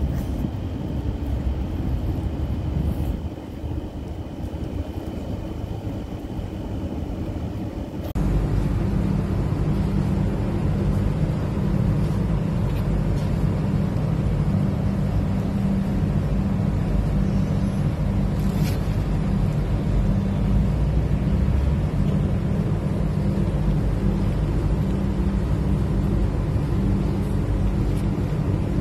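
Steady low rumble of outdoor background noise. About eight seconds in, a cut changes it to a louder, steadier hum.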